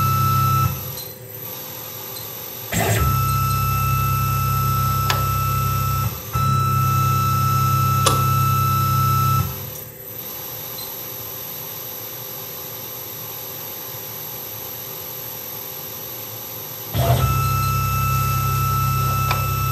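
Tormach PCNC 1100 CNC mill spindle running a G84 tapping cycle with a thread-forming tap in stainless steel. The spindle motor hums with a steady high whine, cutting off and restarting with a click several times as it drives the tap in and out of a hole. It then sits quiet for about seven seconds, the usual pause between holes in this tapping cycle, and starts up again near the end.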